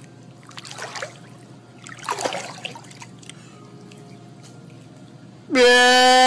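Faint splashing of pool water, then a man's very loud, long wail held on one pitch for about a second and a half, cut off abruptly.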